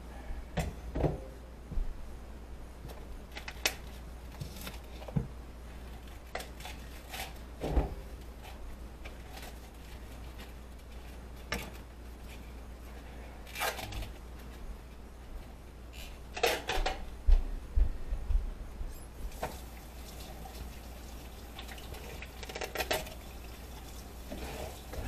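Kitchen clatter: dishes, pans and utensils being handled and set down in scattered clinks and knocks, busiest and loudest about two-thirds of the way through, over a steady low hum.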